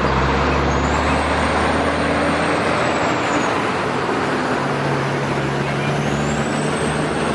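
Road train, a diesel prime mover hauling several livestock trailers, passing close by with a steady engine drone and tyre noise. A high whine rises and falls twice.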